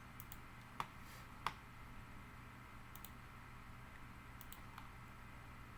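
A handful of faint, sharp computer clicks from a mouse or keyboard, scattered irregularly, the two loudest about a second and a second and a half in, over a faint steady room hum.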